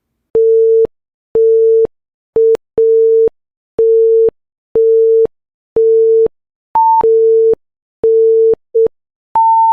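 Quiz countdown timer beeping: a steady mid-pitched electronic beep about once a second, ending in a longer, higher beep near the end as the time runs out.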